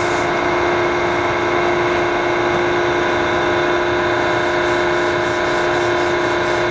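Cincinnati-Milacron R-57 universal cylindrical grinder running with its table traverse switched on: a steady machine hum and whine of several held tones over a hiss.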